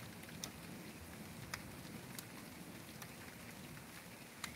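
Faint, steady rain falling, with a few sharp taps of single drops landing close by.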